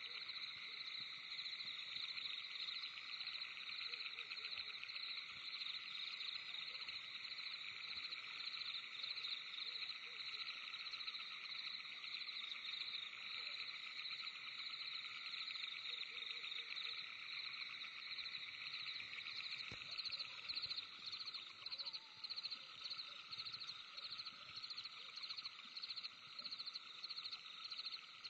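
Night-time forest chorus of calling insects: a dense, continuous high trilling. About two-thirds of the way in it turns into more distinct, uneven pulses.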